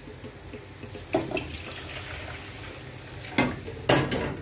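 Hot water being poured into a pot of browned oxtails. It starts with a knock about a second in, pours for about two seconds, and ends with two sharp knocks near the end.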